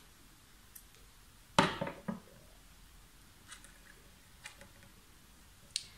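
Scissors and a strand of wool yarn being handled: a sharp snip or clack about a second and a half in, a softer knock half a second later, then a few faint handling clicks.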